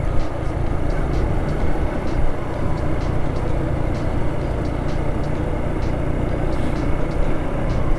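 Motorcycle engine running steadily while riding at about 35 km/h, heard as a dense low rumble. Scattered short ticks sound over it.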